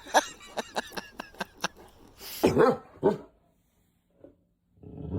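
A dog barks twice, after a quick series of sharp taps.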